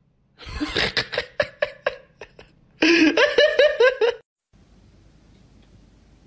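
A person laughing: a run of quick breathy snickers, about five a second, then a louder pulsing laugh that breaks off about four seconds in, followed by a faint steady hiss.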